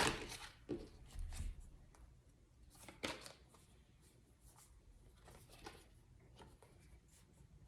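Tarot cards being handled: a series of short, soft rustles and light taps as cards are shuffled, drawn and laid down, with a dull low bump about a second in.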